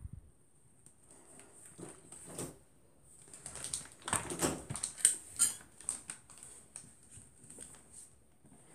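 Handling noises as a cardboard cereal box and small candy packets are moved and rustled on a wooden floor: scattered light clicks and rustles, a couple of knocks about two seconds in, and a busier run of rustling and sharp clicks from about three and a half to five and a half seconds in.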